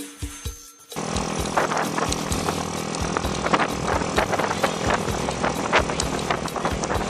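Background music cuts off abruptly about a second in, giving way to a trail motorcycle riding: engine noise buried in a loud, steady rush of wind on the microphone, with frequent short knocks.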